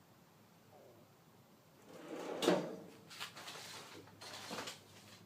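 Rummaging through workshop clutter: a short scraping slide about two and a half seconds in, then a few light clicks and knocks of small items being moved.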